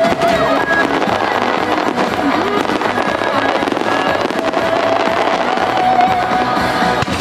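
Grand-finale fireworks: a dense, continuous volley of shells bursting and crackling, over the music that the show is set to.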